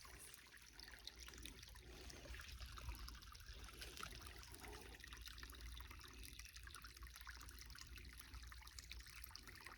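Faint creek water trickling steadily.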